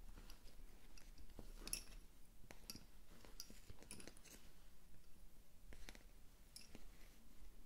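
Slim wooden Honiton lace bobbins clicking together as they are crossed, twisted and laid down while the lace is worked: a run of faint, irregular light clicks.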